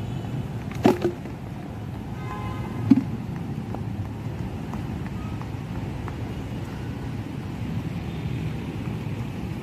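Steady low rumble of road traffic outdoors, with a sharp knock about a second in and a brief louder sound near three seconds.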